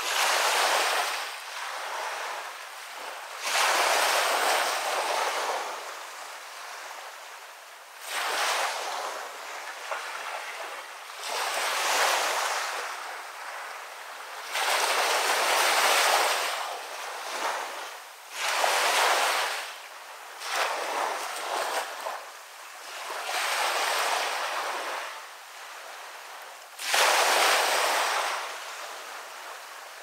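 Waves breaking and washing up the beach, a fresh wash swelling and fading every three to four seconds.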